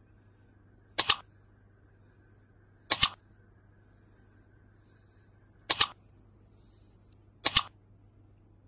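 Four computer-mouse click sound effects, each a quick double click, spaced about two seconds apart, going with an animated like-and-subscribe button overlay.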